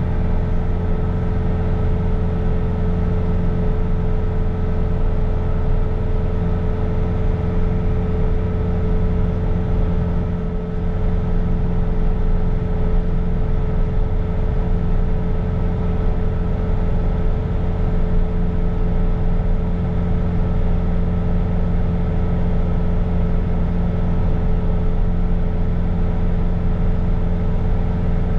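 Bobcat T66 compact track loader's diesel engine running steadily under load while driving its snow blower attachment, with a steady whine over the engine hum.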